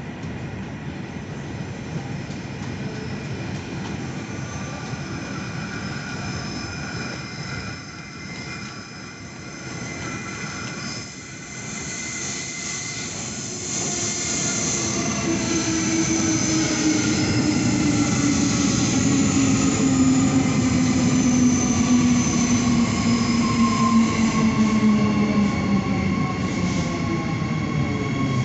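Electric suburban train approaching along a curve. It gets louder from about halfway, its motor whine falls slowly in pitch as it slows, and high-pitched wheel squeal comes from the curve.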